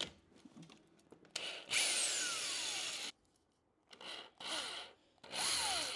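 Cordless power drill backing screws out of a wooden bed frame, run in several short bursts. Each burst ends in a falling whine as the motor spins down, with the longest run early and three shorter ones near the end.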